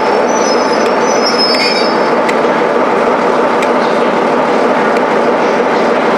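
Diesel locomotive running slowly past, with a steady engine and wheel noise and brief high wheel squeals in the first two seconds.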